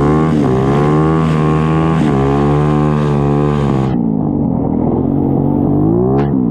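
Homemade drift kart's YCF 125 cc single-cylinder four-stroke engine running and revving up and down with the throttle. About four seconds in, the sound turns abruptly muffled and dull, as the rain-soaked microphone drowns.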